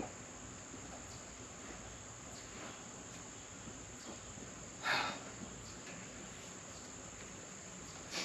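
Insects, crickets by their steady high chirring, droning without a break. About five seconds in, a single short knock or rustle.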